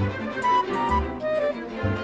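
Background music with a repeating melody over a steady bass beat about once a second.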